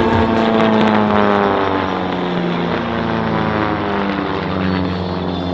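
Propeller aircraft engine droning as the plane passes, its pitch sliding downward over the first couple of seconds.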